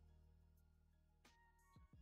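Near silence, with faint background music underneath.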